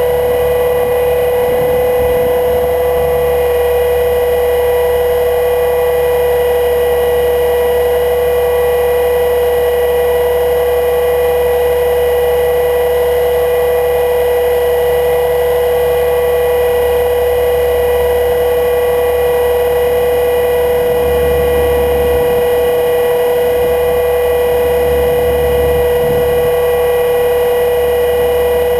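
HK 500 GT electric RC helicopter in flight, its Scorpion 1600KV brushless motor, gears and rotor giving a loud, steady whine at an unchanging pitch, heard from a camera mounted on the helicopter. A low rumble of wind gusts swells underneath now and then.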